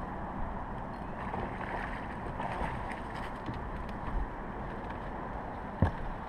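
Steady wind and water noise around a bass boat's deck, with one sharp knock near the end.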